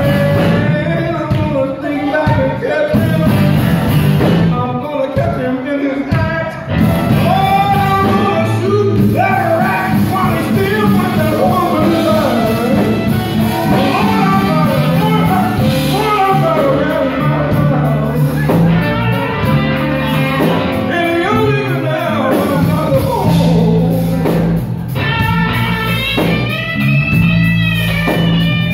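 Live blues band playing: a male singer over electric guitars, drums, trumpet and saxophone.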